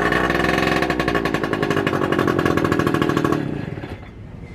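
Small outboard motor running just after starting, now that its kill-switch clip is in place. Its pitch settles down from a high rev over the first second, then holds steady until it cuts off about three and a half seconds in.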